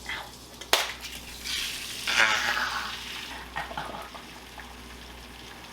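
A sharp crack of an egg against the pan, then a burst of sizzling that fades over a second or so as the egg hits the hot frying pan.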